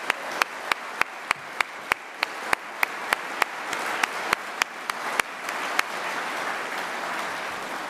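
Conference audience applauding, with one set of sharp, evenly spaced claps standing out at about three a second until a little after five seconds in. The applause swells and then eases slightly toward the end.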